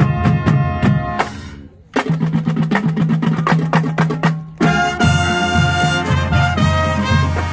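Marching band playing live, brass and drums. About a second and a half in the music dies away. Then it crashes back in on a fast, even drum beat, and full held brass chords enter about five seconds in.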